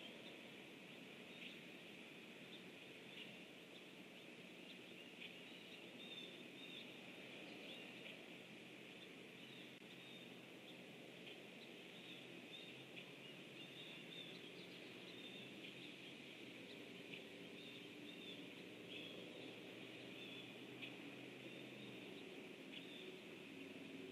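Faint outdoor pond ambience: a steady high-pitched chorus with many short chirps scattered through it.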